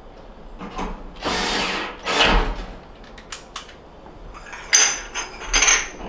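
Cordless drill-driver run in several short bursts while working on the gas range's burner bases, with a couple of sharp metal clicks in between.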